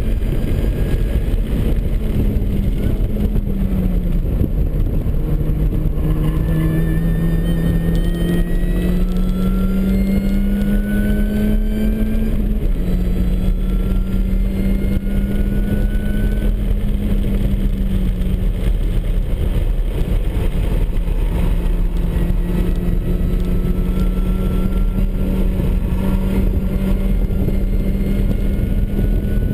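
Supercharged MINI Cooper S four-cylinder engine driven hard on a race track. The revs dip about three seconds in, climb steadily, then drop sharply at an upshift around thirteen seconds. They hold and sag slightly, then climb again toward the end, over constant road and wind noise.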